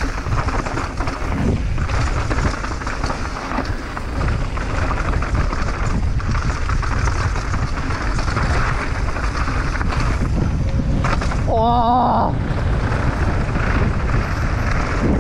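Wind buffeting an action camera's microphone, mixed with tyre noise and rattling from a mountain bike descending a loose dirt trail at speed. Near the end the rushing briefly drops away and a short wavering whoop of a voice rises above it.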